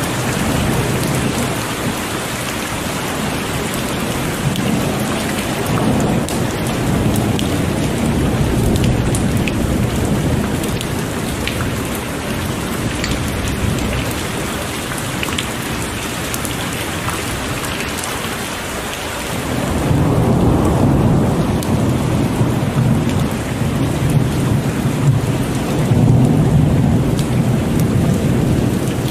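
Heavy rain pouring steadily, with thunder rumbling underneath; a louder, long roll of thunder builds about two-thirds of the way through and keeps rolling.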